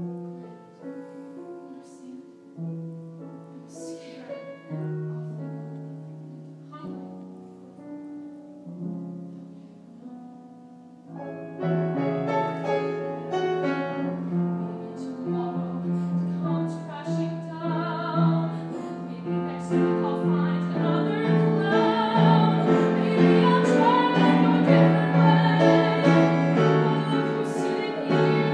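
Piano accompaniment plays a quieter passage, then about eleven seconds in a young woman's trained voice comes in loud, singing in classical style with vibrato over the piano.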